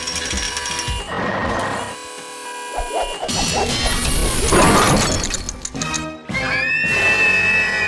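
Cartoon crash sound effect over background music: a loud clattering smash about halfway through, with smaller knocks before it.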